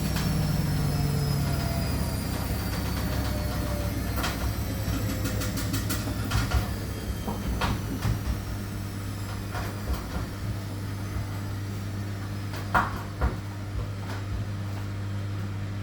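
Washing machine running with a steady low hum, its motor whine falling in pitch over the first few seconds, then scattered knocks and clunks from the machine, the two loudest close together near the end. The machine is jumping and banging as it runs.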